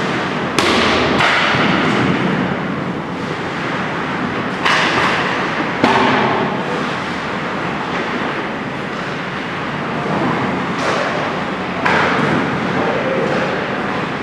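Ice hockey shooting drill: a handful of sharp knocks of sticks hitting pucks and pucks striking the boards, each trailing off with an echo, over a steady scraping hiss of skates on ice.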